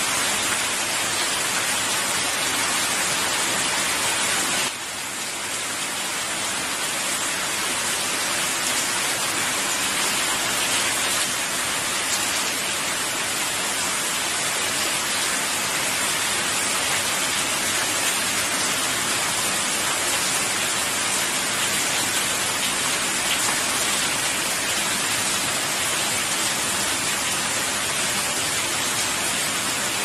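Steady rain falling, a dense even hiss, with a slight drop in level about five seconds in.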